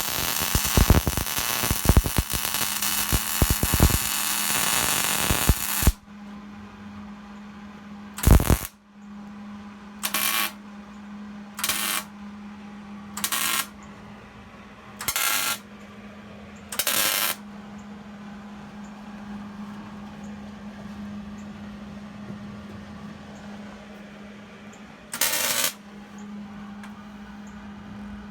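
Welding arc crackling steadily for about six seconds, then a run of short half-second welding bursts, like tack or stitch welds, with longer pauses between them. A steady low hum runs under it all.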